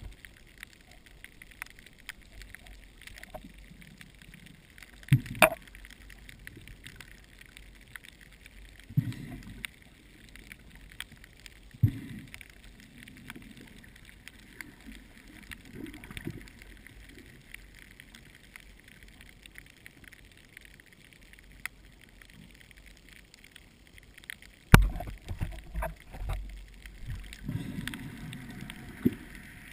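Underwater sound through a camera's waterproof housing: a low wash of water moving in the surge, broken by a few sharp knocks and short thumps, the loudest about 25 seconds in, with a rougher patch of water noise near the end.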